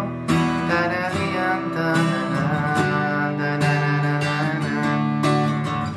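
Acoustic guitar strummed through a I–V–vi–IV chord progression in G (G, D, E minor, C), with repeated strum strokes and the chords ringing between them.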